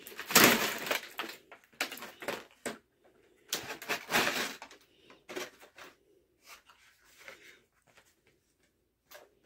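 Clear plastic packaging crinkling and rustling as it is handled and pulled open, in three bursts over the first five seconds, followed by a few faint clicks and taps of small plastic pieces being handled.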